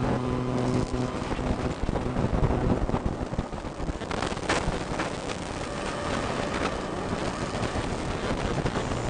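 Electromagnetic interference picked up by an electromagnetic field pickup, the kind also used to find wiring in walls, and played back as sound: a dense crackling, buzzing hiss. A steady low mains-type hum sits under it for the first second or so, and sharp clicks break through, one standing out about halfway through.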